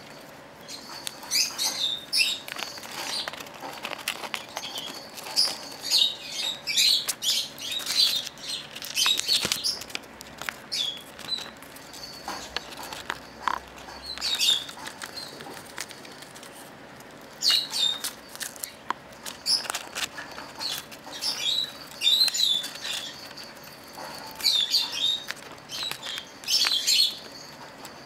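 Rosy-faced lovebird giving bursts of short, high chirps every few seconds while it bites and shreds a sheet of paper, with paper rustling and sharp clicks in between.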